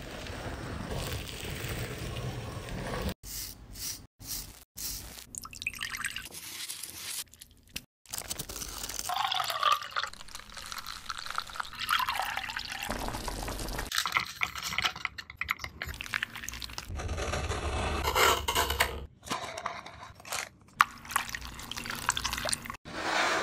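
A run of short cooking sounds cut together: a stone hand mill grinding, then thick green cake batter pouring and dripping into a pan and into a paper-lined mould. The sounds break off abruptly many times at the cuts.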